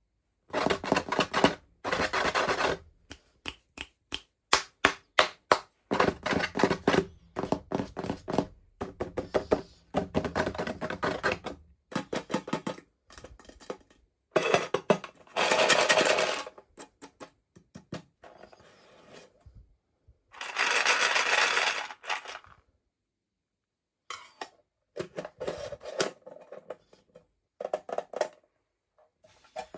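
Hands handling toy packaging and small plastic pieces: a run of irregular taps and clicks, broken by a few dense crackly bursts about a second long.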